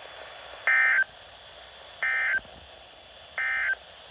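Emergency Alert System end-of-message code: three identical short, buzzy digital data bursts about a second and a half apart. They mark the close of the flood warning broadcast.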